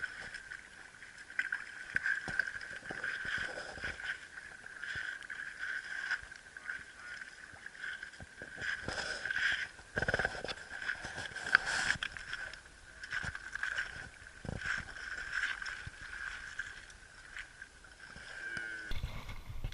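Creek water sloshing and gurgling, with scattered knocks, under a steady high-pitched hum.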